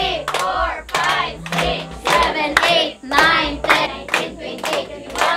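Several people singing together to a strummed acoustic guitar, with hands clapping along throughout.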